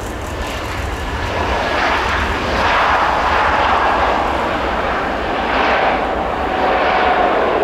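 Airbus A320 jet engines at takeoff thrust during the takeoff roll: a loud jet roar that builds and swells in waves as the airliner accelerates past. A faint steady whine runs through it near the end.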